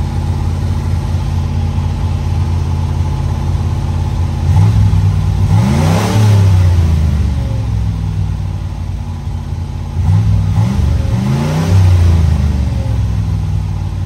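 Chevy 305 small-block V8 of a 1986 Monte Carlo SS running at a fast idle while it warms up. It is revved twice, about four and a half seconds in and again about ten seconds in, each time rising in pitch and settling back to idle.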